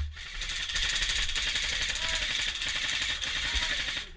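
Airsoft gun firing a long full-auto burst: a fast, even rattle that starts about half a second in and lasts about three and a half seconds.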